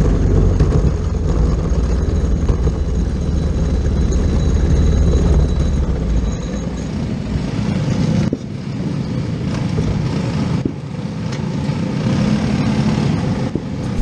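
Briggs & Stratton LO206 single-cylinder four-stroke kart engine running at low speed as the kart coasts in. About eight seconds in, its deep rumble drops away sharply, leaving a lighter, rougher engine noise.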